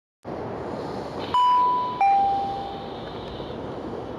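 A ship's passenger elevator, built by Ushio Reinetsu, sounding its falling two-note ding-dong chime: the higher note comes about a second in and the lower note rings out and fades. A steady hum of background noise runs underneath.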